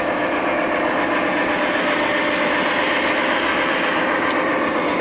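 Recorded diesel-engine sound from a G-scale model diesel locomotive's onboard sound system, playing a steady idle with an even drone.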